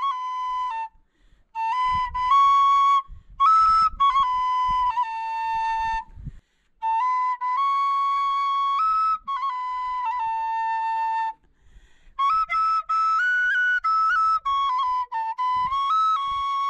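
A wooden flute playing a simple folk melody. The notes step between a few pitches in short phrases, broken by brief pauses.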